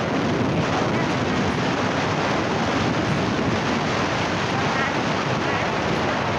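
Steady, loud wind rushing over a phone microphone on a moving motorcycle, drowning out most other sound.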